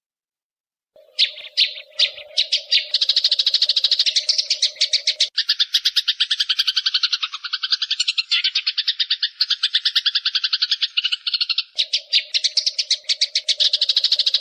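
Eurasian tree sparrow giving its long, fast fighting chatter: a few separate chirps about a second in, then an unbroken rattle of about ten sharp notes a second. A steady low hum runs under the first and last parts.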